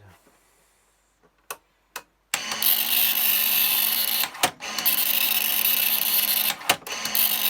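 Commodore MPS-801 dot-matrix printer printing: two small clicks, then about two seconds in the print head and motor start a loud, continuous buzzing rattle, broken briefly twice.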